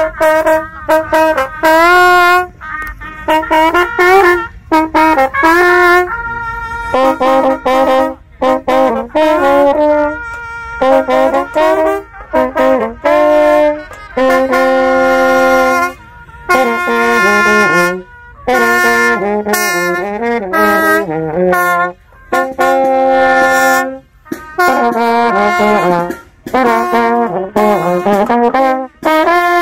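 Trumpets playing loud, fast phrases with brief breaks between them, often several horns sounding together in harmony.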